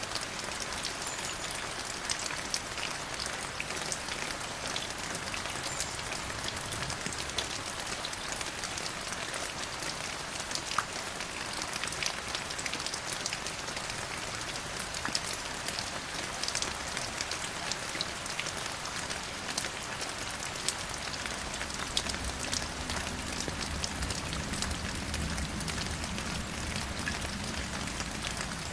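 Steady rain falling on a surface, a continuous hiss with many distinct drop hits. A low rumble joins in about three-quarters of the way through.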